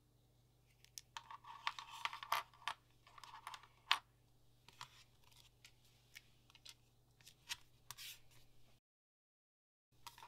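Resin badges tapped down on a hard tabletop and a strip of paper masking tape pulled, torn and pressed down, heard as a run of irregular scratches, scrapes and light clicks. It cuts to silence for about a second near the end.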